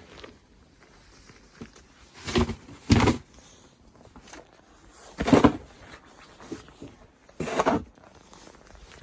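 Snow shovel scraping and scooping through heavy snow in four separate strokes, two close together about two and a half seconds in, then one at about five seconds and one near the end.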